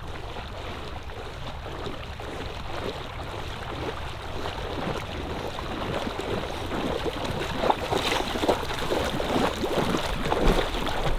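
Dog swimming and then wading through shallow marsh water on a retrieve, its splashing and sloshing growing louder as it comes closer, with sharper splashes near the end.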